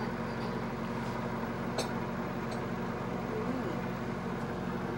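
Microwave oven running with a steady electrical hum while it heats a bowl of butter, counting down its last seconds.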